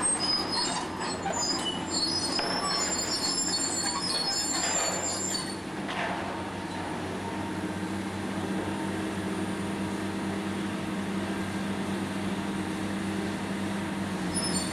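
Diesel demolition excavators running steadily while a hydraulic crusher works on the building. High metallic squeals and screeches come and go over the first five seconds or so, with a knock about six seconds in, then a steady engine drone.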